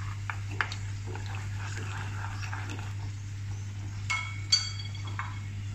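Noodles being stirred in an aluminium pot of boiling water with a wooden utensil: a few light clicks, then two sharp, ringing clinks against the pot about four seconds in, over a steady low hum.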